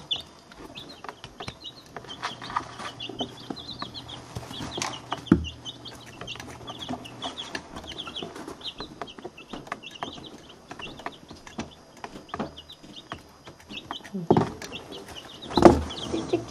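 A box of week-to-ten-day-old chicks peeping busily close up: a continuous stream of short, high cheeps, with small taps and scratches among them. There are two louder knocks near the end.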